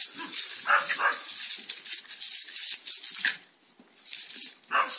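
Smooth fox terrier barking in short bursts at the hissing spray of a garden hose spray gun; the spray stops for about half a second around three and a half seconds in.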